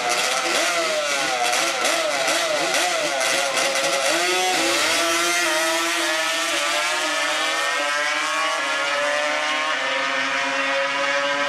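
Drag-racing ATV engine at high revs, its pitch climbing and falling several times in the first few seconds, then held high and sinking slowly as the quad runs down the strip.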